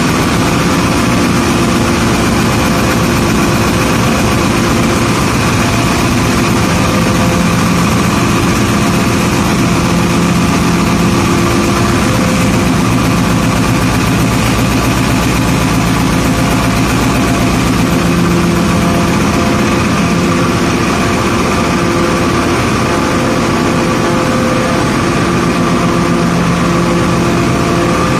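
AF high-pressure oil-free air compressors, 355 kW machines rated for 40 bar, running at full load: a loud, steady machinery drone with several steady hum tones over a fast low throb.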